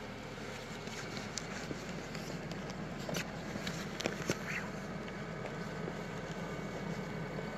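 Footsteps crunching in deep fresh snow, with a few sharp crunches and clicks, over a steady low hum.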